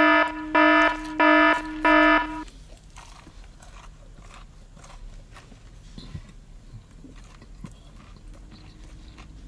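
Electronic alarm sound effect: four loud beeps about 0.6 s apart over a continuous buzzing tone, lasting about two and a half seconds. Then faint chewing.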